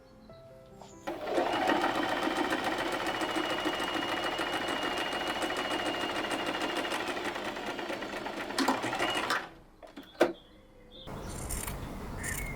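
A small electric motor runs steadily with a fast, even ticking for about eight seconds, then stops. A single sharp click follows.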